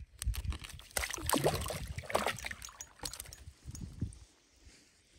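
Water splashing and sloshing with handling noises as a caught panfish is brought up through the ice hole, loudest between about one and three seconds in, then quieter, fading near the end.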